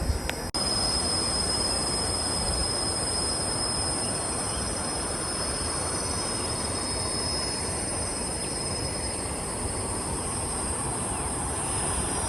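Insects buzzing steadily in several high, unbroken tones over a constant rushing noise.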